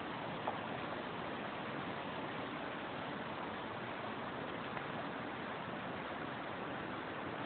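Steady rushing of a flowing river's current, with a small click about half a second in.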